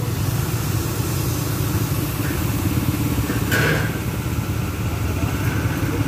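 Heavy diesel road-construction machinery, an asphalt paver and road rollers, running steadily with a pulsing low rumble, and a brief hiss about three and a half seconds in.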